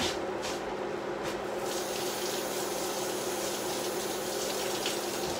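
Water running from a tap, starting about two seconds in, over a steady low hum, with a few light knocks before it.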